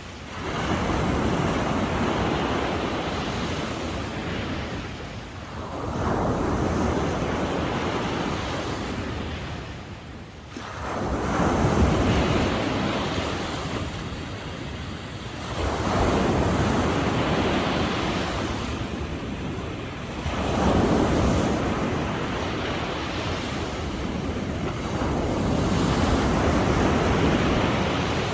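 Sea waves breaking and washing up on the shore, each surge swelling and then drawing back, about every five seconds.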